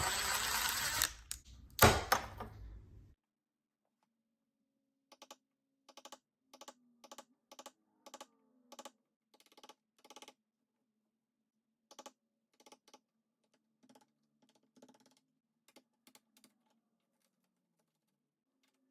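Flathead screwdriver used as a chisel on a wooden door jamb to deepen the strike-plate recess: scraping with a couple of sharp knocks for the first few seconds. After a sudden cut comes a run of light, irregular clicks and taps.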